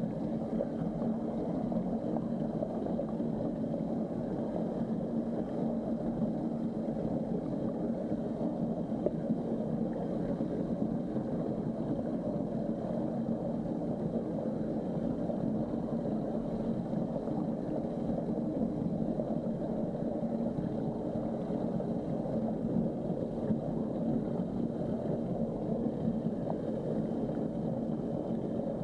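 Steady, muffled underwater drone picked up through an action camera's sealed waterproof housing, with a low hum held at one pitch.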